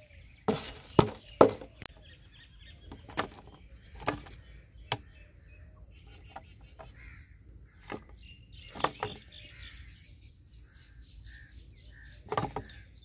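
Thin plastic bottle crackling and knocking as it is handled and tipped over, a scattered series of sharp clicks, the loudest about a second in. Birds chirp faintly in the background.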